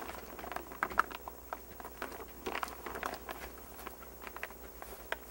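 Light rustling of greenhouse polyethylene sheeting with scattered small clicks, as the plastic is pulled tight and wiggle wire is worked into its channel on the sidewall rail.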